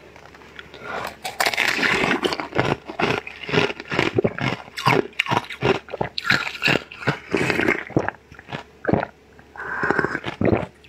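Close-miked mouth sounds of eating a translucent blue ball-shaped sweet: biting into it and wet chewing, as quick irregular clicks that start about a second in and pause briefly near the end.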